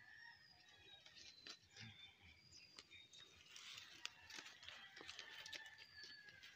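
Faint footsteps crunching and rustling on a dirt path through dry leaves and brush, as a series of small irregular crackles. Several thin, high chirps sound over them.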